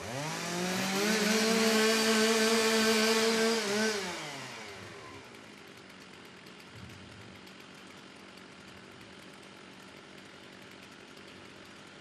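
Two-stroke STIHL stock-saw chainsaw being warmed up before a timed cut. It revs up to full throttle and holds a steady high pitch for about three seconds, then drops back around four seconds in and runs on faintly at idle.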